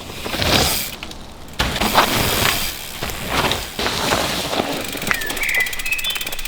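Mountain bike ridden fast over a dirt trail: rushing tyre noise with rattles and knocks from the bike. A brief high squeak comes about five seconds in.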